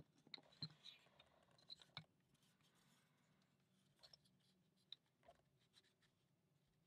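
Faint clicks and light scraping of laser-cut plywood model parts being handled and fitted together, mostly in the first two seconds and again briefly around four to five seconds in.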